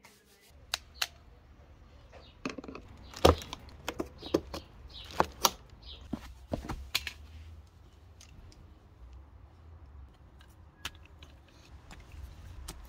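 Scattered sharp clicks, taps and snaps of hands handling electrical cable, plugs and crimped wire ends, the loudest about three seconds in, over a faint low hum.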